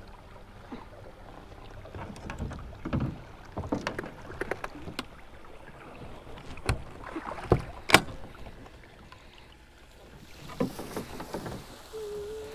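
A small fishing boat moving through shallow water toward the bank, with water splashing and scattered knocks against the hull, the loudest a few sharp knocks about two thirds of the way through.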